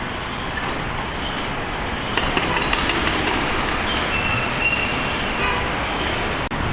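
Steady city traffic noise, with scattered knocks and clanks from about two seconds in.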